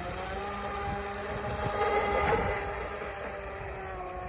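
Electric motor of a radio-controlled model speedboat whining at a steady pitch while the boat runs at speed. It swells louder about two seconds in.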